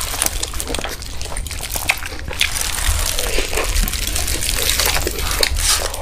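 Close-miked ASMR eating sounds of a large chicken shawarma roll: wet chewing and mouth sounds with many small irregular clicks and crackles.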